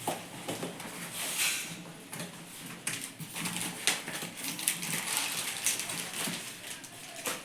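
Rustling and scattered taps and clicks from handling a television's cardboard box and packaging during unboxing.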